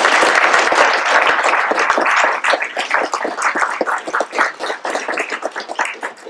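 Audience applauding: dense clapping that thins out after about two and a half seconds into scattered separate claps, fading away near the end.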